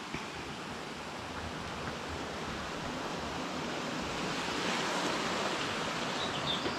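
Flowing stream running under a footbridge: a steady rushing noise that swells slightly midway. A bird chirps a few times near the end.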